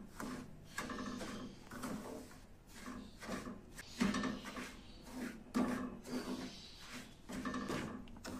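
A metal spatula scraping and stirring dry roasted semolina with nuts and powdered sugar around a steel pan, in repeated irregular strokes.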